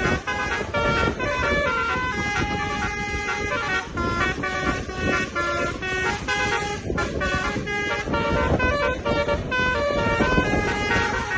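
Tour bus's telolet 'basuri' musical horn playing a continuous tune of held notes that step from pitch to pitch, over a steady low rumble.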